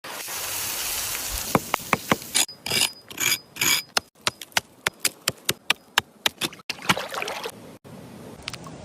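A steady hiss, then a long series of sharp knocks, about three a second, with a few short scraping bursts among the first of them.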